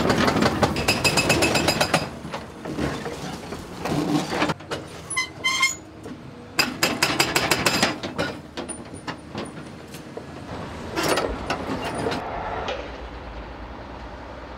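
Excavator-mounted hydraulic breaker hammering the concrete deck in rapid blows, in several separate stretches, over the running excavator and the clatter of broken concrete. A few short beeps sound about five seconds in.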